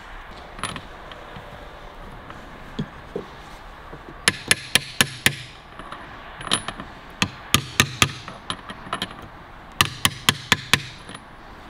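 Hand ratchet wrench clicking in short runs of a few quick clicks as a socket on the gearbox shaft nut is worked back and forth, about four runs in all.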